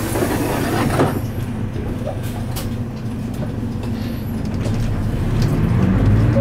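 Mitsubishi Fuso Aero Star (KL-MP37JK) city bus's diesel engine heard from inside the cabin, running low and steady as the bus rolls slowly, then rising in pitch and level about five seconds in as it pulls away. A single knock sounds about a second in.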